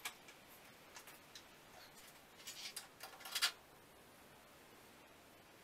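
Hand-tool work on a truck's suspension: faint scattered clicks, then a few short rasping bursts between about two and a half and three and a half seconds in.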